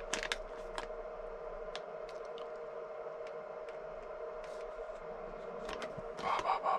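Light handling of plastic-bagged kit parts: a few small clicks and rustles of the packaging, over a steady faint hum, with the plastic bags crinkling more near the end.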